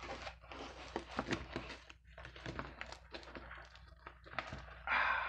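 Plastic anti-static bubble-wrap bag rustling and crinkling as a laptop keyboard is slid out of it, with scattered clicks and knocks; the loudest rustle comes near the end.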